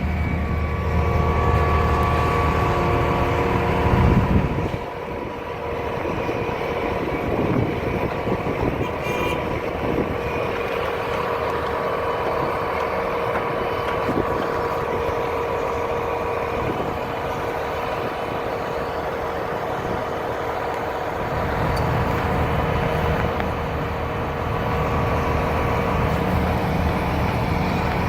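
Diesel engine of a concrete pump truck running steadily under load, with a droning hum. Its deep low rumble drops away about four seconds in and returns about three-quarters of the way through.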